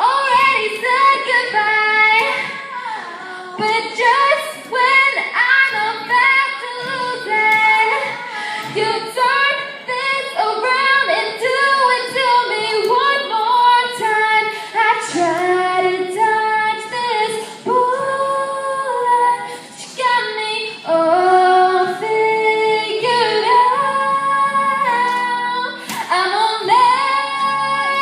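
Female vocal group singing a song together in close harmony, several voices sounding at once and carrying on without a break.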